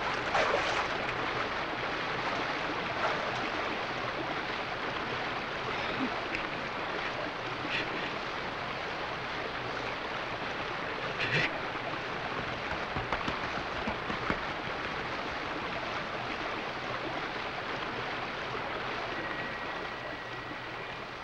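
Steady rushing of running water, even and unbroken, with a few faint knocks about halfway through.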